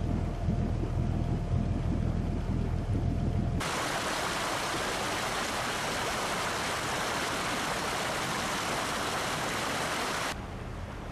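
A boat engine running with a steady low drone. About three and a half seconds in, it cuts suddenly to loud rushing water for about seven seconds, then cuts back to the engine drone, somewhat quieter.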